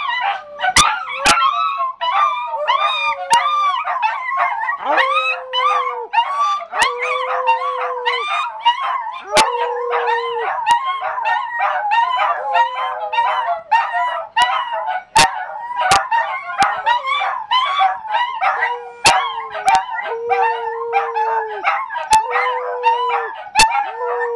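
Three dachshunds and a Scottish terrier howling in chorus: high, wavering howls and yips overlap throughout, while one lower, steadier howl is held for a second or so and repeats every couple of seconds.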